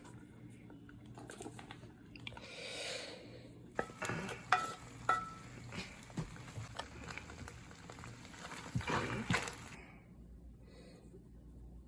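Light clinks and taps of a utensil against dishes, a couple of them ringing briefly, clustered in the middle, after a soft scrape.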